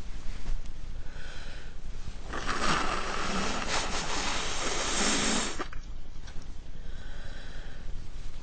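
A person blowing their nose hard into a tissue: one long blow of about three seconds in the middle, with shorter, weaker blows just before and near the end. The nose is congested from a head cold.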